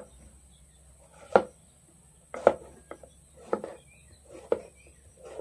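Kitchen knife chopping peeled sponge gourd (patola) into chunks, each stroke cutting through the soft flesh and knocking on a plastic chopping board. There are about five sharp chops, roughly one a second, starting about a second in.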